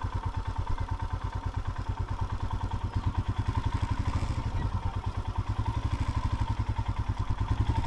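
Royal Enfield motorcycle engine idling with a steady, even pulse.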